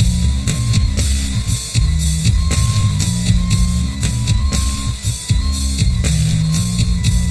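Background music with a steady drum beat and a low bass line.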